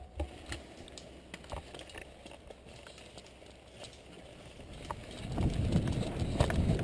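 Footsteps on dry fallen leaves and twigs, with scattered sharp clicks. About five seconds in they become much louder and heavier as the walker breaks into a run, with a low rumble of movement on the microphone.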